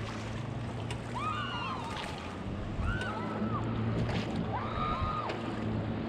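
River water rushing around an inflatable raft, with paddles dipping and splashing. A high, arching whistle-like tone repeats about every two seconds.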